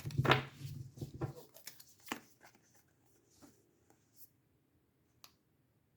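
Tarot cards being handled on a table: a run of soft rustles, slides and light taps, dense at first and thinning to a few scattered clicks.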